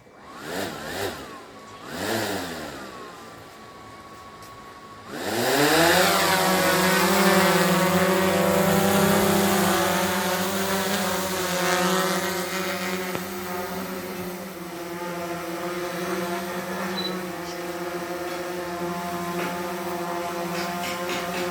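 Drone motors and propellers spinning up suddenly about five seconds in, then running at a steady high whine. Before that, fainter gliding tones are heard.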